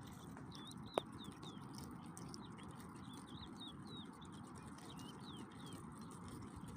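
Birds chirping: many short, quick chirps repeating over a faint steady background noise, with one sharp click about a second in.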